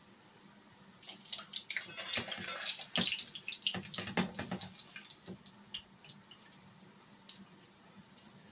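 Green plantain slices frying in hot oil, starting to sizzle about a second in as they are turned with metal tongs, with sharp clicks of the tongs against the pot. The sizzle thins to scattered crackles after about five seconds.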